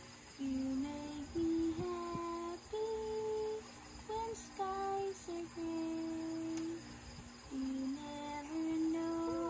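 A woman humming a slow lullaby tune in long held notes that step up and down, with short breaks between phrases.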